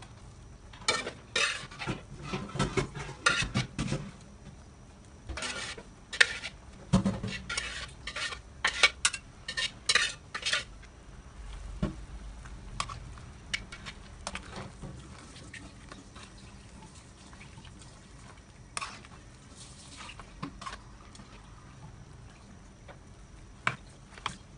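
A utensil clinking and scraping against a pot while the soup ingredients are stirred, in bursts of rapid clatter over roughly the first ten seconds, then only a few scattered clicks.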